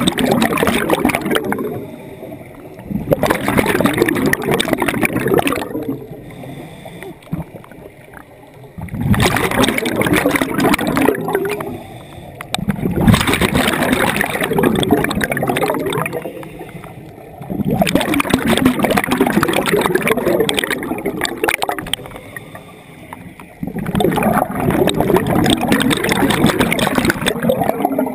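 Scuba diver's exhaled bubbles from the regulator, bubbling past the camera in long bursts about every four to five seconds, with quieter gaps between breaths.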